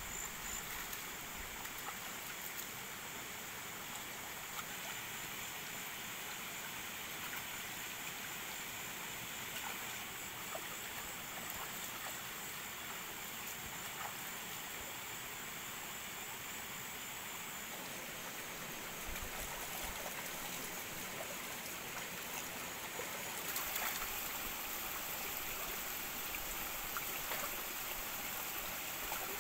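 Shallow rocky stream trickling steadily, with a thin, high insect trill over it for the first half.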